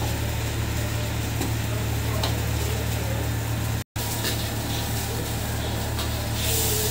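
Steady roar and hiss of a gas wok burner under a wok of hot oil, with a few faint clicks. The sound drops out for an instant just past the middle.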